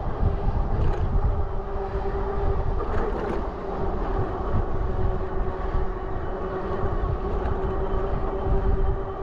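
Train running: a continuous low rumble with a steady mid-pitched hum and a few faint clicks.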